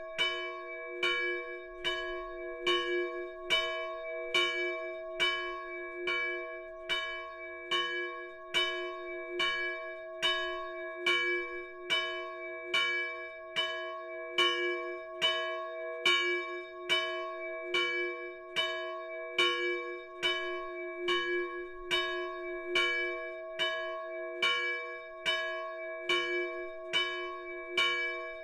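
The small church bell, a 170 kg bronze bell cast in 1840 by János Nemes Tatár and tuned to C♯/D♭, swung by a Rancz tubular linear motor and struck in an even rhythm a little faster than once a second. Each stroke rings on into the next, so the tone never dies away.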